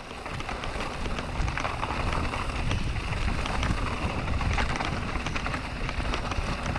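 Mountain bike rolling downhill over a wet cobblestone track: a steady low rumble from the tyres on the stones, with rapid irregular clicks and rattles from the bike.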